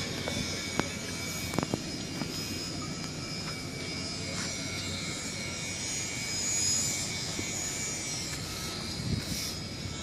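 Steady rushing hiss of air with faint whistling tones, from the air-driven vacuum box rig used to leak-test welds, with a few light clicks in the first two seconds.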